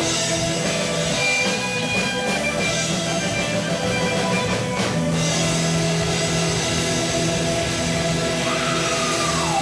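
Live rock band playing: electric guitar and bass guitar with drums, and a note sliding down in pitch near the end.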